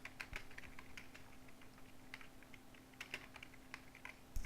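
Computer keyboard being typed on: faint, irregular key clicks over a low steady hum, with a soft thump near the end.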